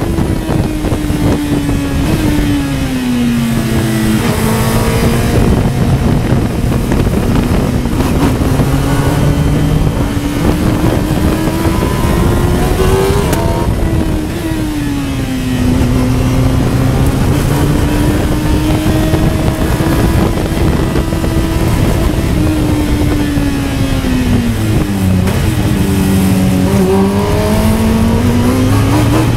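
Westfield Megablade's Honda CBR1000RR Fireblade inline-four motorcycle engine at high revs on track, the note rising and falling with throttle and gear changes. There is a brief lift about halfway through. Near the end the revs fall through quick dips and rises as it changes down to first for a slow corner, then start climbing again.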